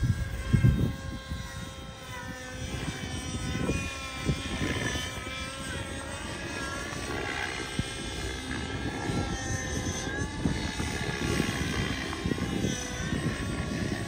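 Radio-controlled model helicopter flying nearby: a steady multi-toned whine of its motor and rotor blades that wavers slightly up and down in pitch, over a low rumble.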